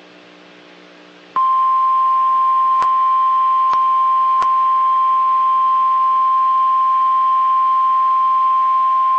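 NOAA Weather Radio 1050 Hz warning alarm tone, one loud steady beep starting about a second and a half in and held to the end, marking the start of a severe thunderstorm warning broadcast. A faint low hum comes before it, and a few brief clicks sound over the tone.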